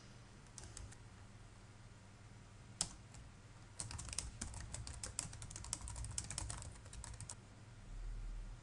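Typing on a computer keyboard: a few light taps near the start and a single sharp click about three seconds in, then a fast run of keystrokes lasting about three and a half seconds.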